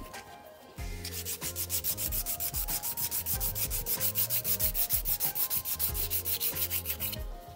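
Hand nail file scraping back and forth over a sculpted acrylic stiletto nail in quick, even strokes, about seven a second, starting about a second in.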